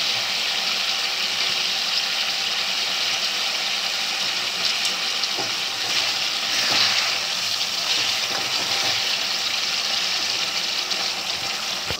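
Thick spice gravy with pieces of fried snakehead fish sizzling and bubbling in a kadai, a steady hiss, with a spatula stirring now and then.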